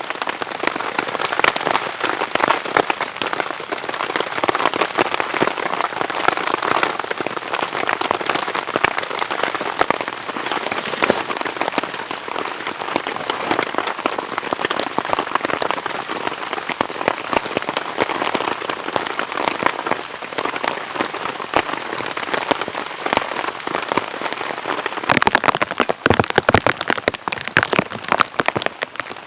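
Heavy rain falling steadily, a dense stream of drops striking a surface. About 25 seconds in the drop hits become louder and sharper.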